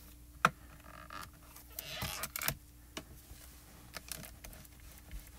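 Handling of a MISTI stamp-positioning tool: a sharp plastic clack about half a second in, then soft rubbing and a few light clicks as the clear lid is pressed down and swung open off the stamped card.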